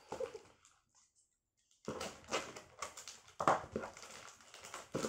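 Plastic parcel wrapping crinkling and rustling in irregular crackles as it is gripped and pulled at. The sound drops out to silence for about a second near the start.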